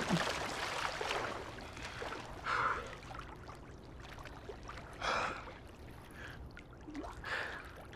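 A swimmer breaking the surface of a pool with a splash, then water lapping around him and three heavy breaths a couple of seconds apart.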